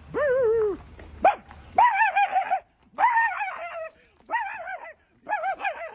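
A man imitating a dog, barking and yelping: one drawn-out falling yelp, then four runs of quick, wavering yips.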